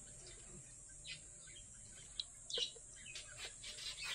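Faint bird chirping: a few short, scattered high chirps over a steady faint high-pitched hiss.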